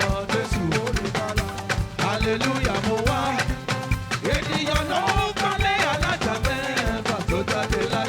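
Live band music with a quick, steady percussion beat, held instrument chords and a wavering melodic line, in the style of African gospel praise music.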